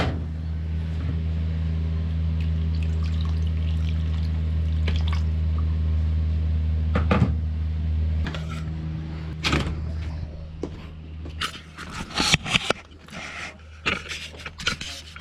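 A steady low hum over running water, which stops about eight seconds in, followed by scattered knocks and clinks of pots and utensils in the kitchen.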